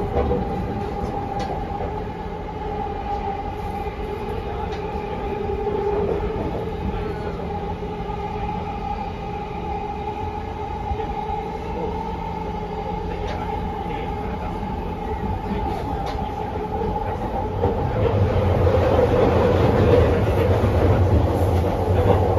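Interior running sound of a JR East 209 series 1000-number electric train with Mitsubishi GTO-VVVF inverter control, cruising between stations. Continuous wheel-on-rail rumble with two steady whining tones, the rumble growing louder about three-quarters of the way through.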